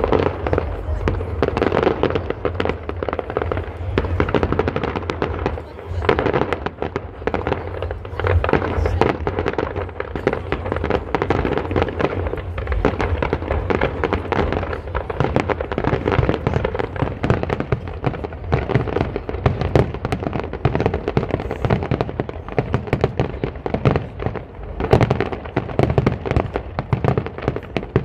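Aerial fireworks bursting in rapid succession: a dense, continuous run of bangs and reports over a low rumble.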